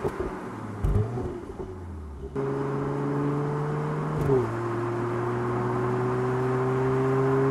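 Mercedes-AMG GLC 43's 3.0-litre biturbo V6 pulling under acceleration, its note slowly rising in pitch. About four seconds in, an upshift drops the pitch, and it then climbs again. The first two seconds hold a couple of loud jolts and end at an abrupt cut.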